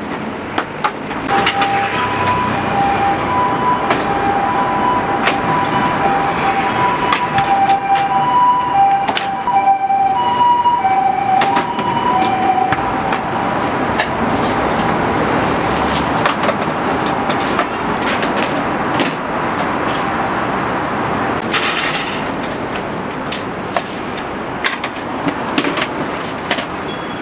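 An ambulance's two-tone hi-lo siren sounds in the street for about the first half, then fades out, over steady traffic noise. Sharp metal clinks and knocks of racks and gear being handled run throughout.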